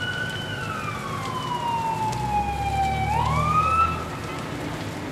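Emergency vehicle siren wailing: a single tone sliding slowly down in pitch, then rising again about three seconds in. A low rumble sits beneath it and swells in the middle.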